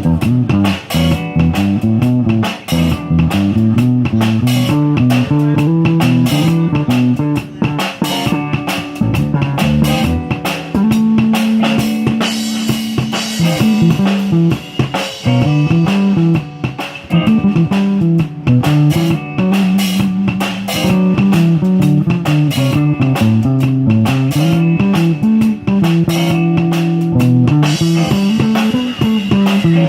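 Live band playing: guitar featured over bass guitar and drum kit, with a moving melodic line throughout.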